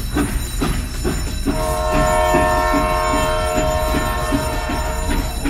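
A long horn blast, a chord of steady tones held for about three seconds, over background music with a steady beat.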